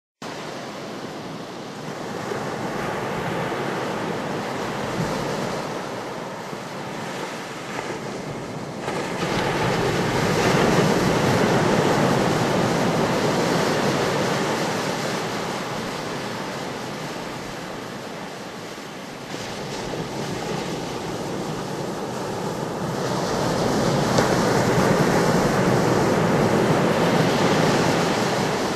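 Steady rushing water noise that swells and ebbs slowly, building twice: once about a third of the way in and again near the end.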